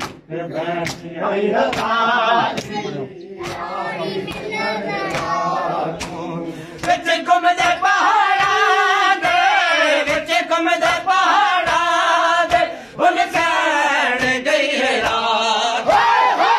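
Group of men chanting a mourning noha in unison, over a steady rhythm of chest-beating (matam) slaps, about two a second. It grows louder about seven seconds in.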